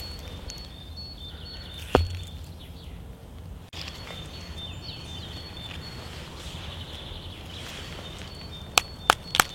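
Birdsong of repeated short high notes over a steady outdoor background, with one sharp knock about two seconds in and a few quick clicks near the end.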